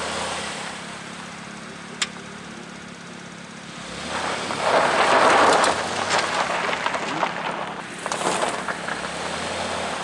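The Cadillac SRX's V6 engine runs steadily while the tyres work over loose ground: a loud surge of noise about four seconds in, then a run of crackling and crunching as the SUV climbs through the diagonal test.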